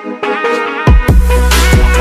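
Background electronic music: melodic synth notes, then a heavy bass line and a kick drum come in just under a second in.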